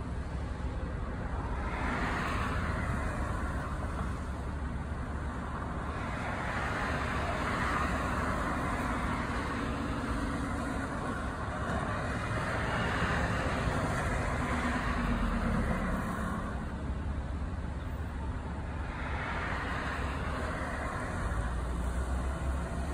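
Street traffic: cars pass one after another, each a swell of tyre and engine noise, over a steady low engine rumble.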